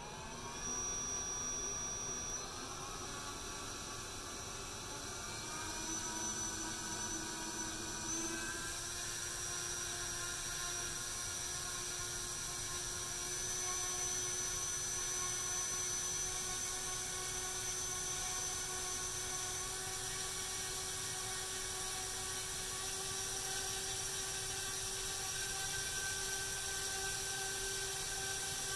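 Small brushless drone motor spinning a two-blade propeller, a steady whine with a buzz. Its pitch steps up three times in the first nine seconds as the throttle rises and the pivoting arm lifts, then holds steady.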